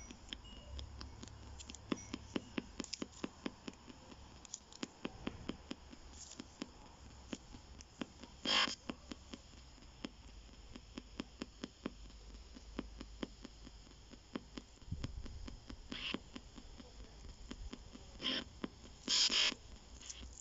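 PSB7 spirit box scanning the AM band through a small speaker: a fast, uneven run of clicks over faint static, with a few short, louder bursts of static about eight seconds in and again near the end.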